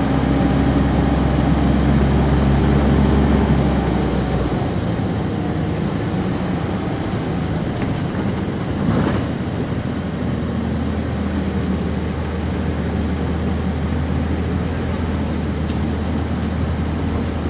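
Cummins ISC diesel engine of a 1999 NovaBus RTS transit bus heard from on board, running strongly at first, then its low note dropping away about four and a half seconds in as the engine eases off. A brief hiss-like noise follows about nine seconds in.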